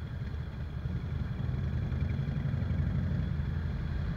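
Cruiser motorcycle engine running at road speed, a steady low rumble that grows slightly louder about a second and a half in.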